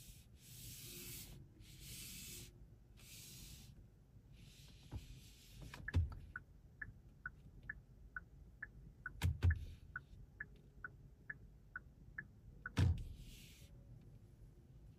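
Several short bursts of soft rustling hiss, then an evenly spaced run of short electronic ticks, a little over two a second, broken by a few sharp clicks.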